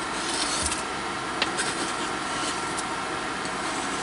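A knife scraping chopped green pepper and onion off a plastic cutting board into an enamelled cast-iron pot, with a few light clicks and taps. Underneath runs the steady fan noise and faint steady whine of an induction cooktop set on high.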